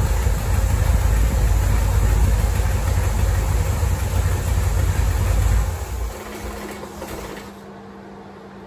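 1973 Corvette V8 idling, then switched off about six seconds in; the engine sound dies away over a second or two, leaving a quiet steady hum.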